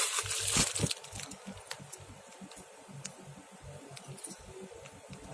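Rustling and handling of small fishing tackle (line and hooks) as a rig is put together, loudest in the first second, followed by scattered light clicks and ticks.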